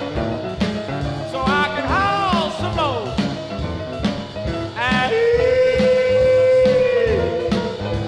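1957 rhythm-and-blues record played from a 45 rpm vinyl single: a band beat under sliding notes that rise and fall, then one long held note about five seconds in that lasts about two seconds.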